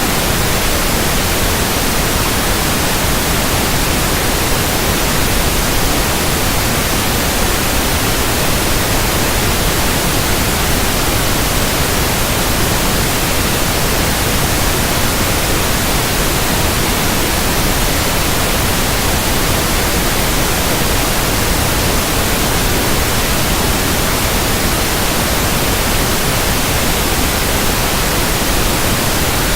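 Pink noise speaker test signal: a loud, steady hiss spread evenly across the whole frequency range, unchanging throughout.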